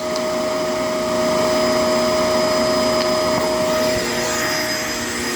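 Shark LA702 vacuum cleaner running steadily, a motor hum with a thin high whine over it; one of its mid tones fades out about four seconds in.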